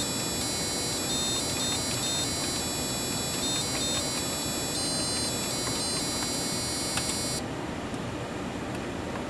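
Small built-in speaker on an LM3S6965 evaluation board, driven by the microcontroller's PWM output, playing a quick run of electronic beep tones. Each tone is a short note at a different pitch, sounded in response to key presses. The notes stop about seven seconds in.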